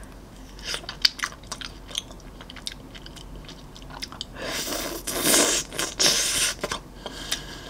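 Close-miked biting and chewing of a chocolate-coated ice-cream bar. Scattered small cracks and crunches come through in the first few seconds, and louder, longer mouth sounds follow about halfway through.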